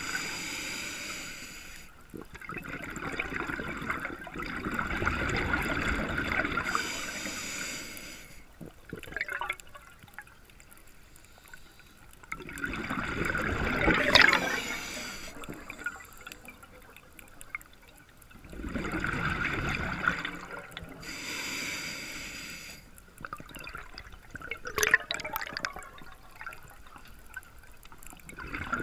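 A scuba diver breathing through an open-circuit regulator underwater: rushes of gurgling exhaled bubbles come in a slow cycle, about every seven or eight seconds, with quieter stretches between and a few faint clicks.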